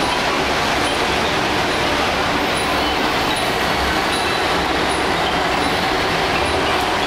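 Dense city traffic noise from a busy multi-lane intersection: a steady wash of car, bus and motorbike engines and tyres. A faint high-pitched beep repeats about every 0.8 s.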